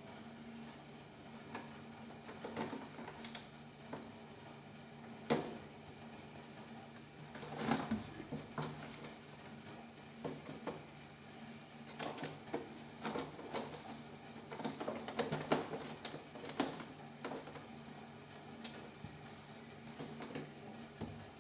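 Kittens playing: irregular light taps, scratches and soft knocks, busier in several flurries, over a faint steady low hum.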